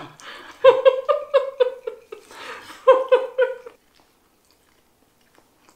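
A woman laughing in quick repeated high-pitched 'ha' pulses, two bouts with a breath between them, stopping about four seconds in.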